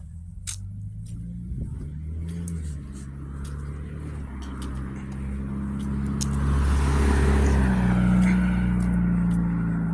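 A car engine hums nearby with a rush of tyre and road noise. The noise swells to its loudest about seven seconds in, as a car passing close by, then eases off.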